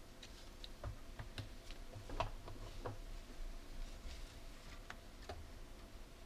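About ten light, irregular clicks and taps as a metal tool and gloved hands handle the plastic and metal parts inside an opened Epson inkjet printer; the loudest comes a little over two seconds in.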